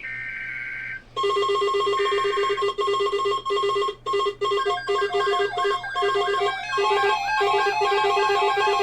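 An Emergency Alert System SAME header: a harsh two-tone digital data burst lasting about a second. It is followed by a loud, electronic, ringtone-like beeping tune of rapid pitched tones, with another brief data burst under it early on.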